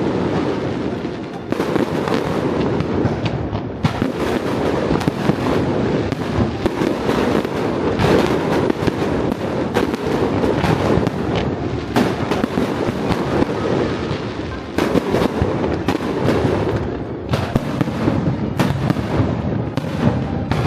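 Fireworks display: a dense, unbroken barrage of bangs and crackling, with many sharp reports piling over one another.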